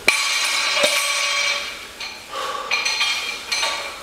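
A 50 kg barbell with bumper plates dropped to the floor: a sharp clank followed by metallic ringing from the bar, a smaller knock just under a second later, then more metallic ringing and clinking from the bar about two seconds in.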